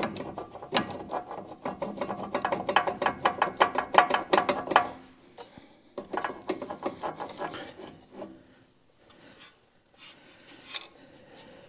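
Hand ratchet clicking fast as a loosened strut-mount fastener is spun off, a run of about five seconds followed by a shorter run, then faint handling of metal parts.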